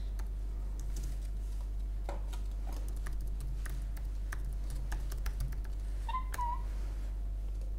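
Computer keyboard typing: scattered key clicks over a low steady hum. About six seconds in, a pet bird gives one short, single-pitched chirp.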